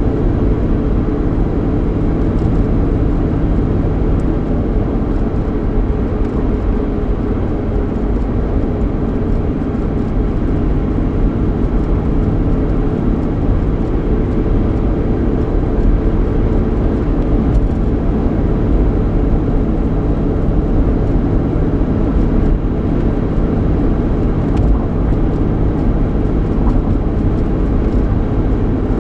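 Cabin noise inside a 3.8-litre V6 Ford Mustang on the move: steady low road and tyre rumble with an even engine hum.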